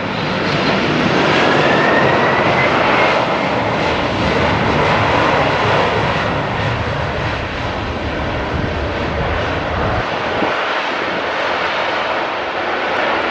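Boeing 747-400F freighter's four jet engines running loud during the landing roll, with a whine that rises in pitch over the first few seconds. The deep rumble drops away abruptly about ten seconds in.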